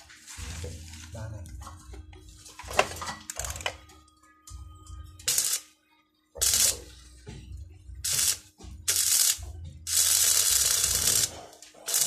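Stick-welding arc on a metal door frame, starting and stopping in a run of short bursts from about five seconds in, the longest lasting about a second and a half near the end. Before that, softer knocks and scrapes of the electrode and steel being handled, with one sharp knock.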